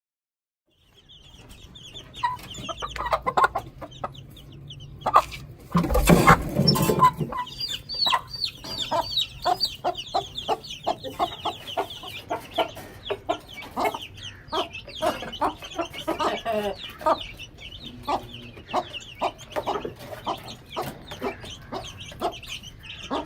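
Aseel hen clucking among her young chicks, which peep in a steady stream of short, high chirps. About six seconds in there is a loud rustling burst.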